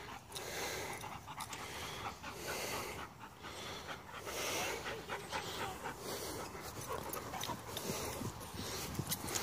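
Dogs panting hard and fast, out of breath from running after a tennis ball.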